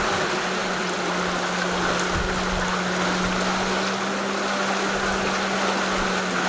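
Steady rush of water and wind aboard a sailing yacht moving under sail, with a steady low hum underneath.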